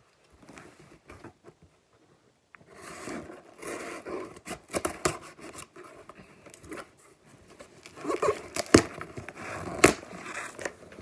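Small scissors cutting the packing tape on a cardboard shipping box, then the tape and cardboard flaps scraping and rustling as the box is worked open, with a couple of sharp snaps near the end.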